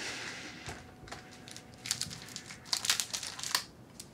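Paper tissue crinkled and crumpled in a hand: a run of short, dry crackles that is busiest from about two to three and a half seconds in.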